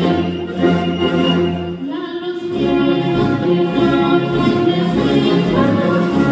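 Choir singing over orchestral accompaniment, with the sustained chords changing about two seconds in.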